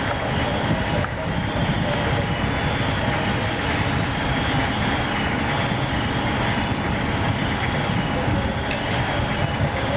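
Fire apparatus engines running steadily, a dense even rumble with a faint steady whine over it.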